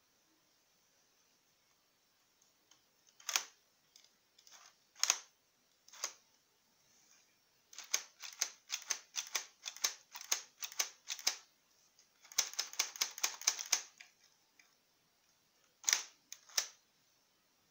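Plastic clicks from a hand-worked LEGO brick-built P-90 toy gun mechanism: a few single clicks, then a run of about three to four clicks a second, a faster rattling run of about seven a second, and two last clicks near the end.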